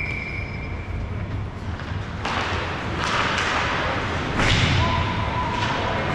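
Ice hockey play on the rink: thuds of puck and sticks, and sudden bursts of scraping hiss about two, three and four and a half seconds in. A steady high tone runs through the first second.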